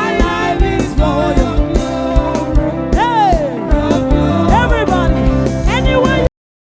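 Gospel music: a singing voice gliding between notes over a steady beat, cutting off suddenly near the end.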